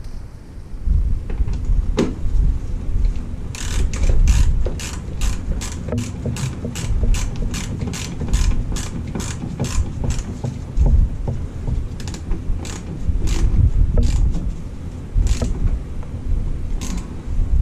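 Hand ratchet clicking as a bolt on an engine ground wire is tightened down. The clicks come in a steady run of about three a second from a few seconds in until past the middle, then turn into slower single clicks, over low knocking from handling.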